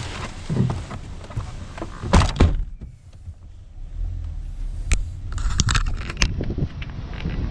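Car door slammed shut with a loud double thunk about two seconds in. A steady low car engine hum follows as the car moves off, with a few clicks and knocks inside the cabin.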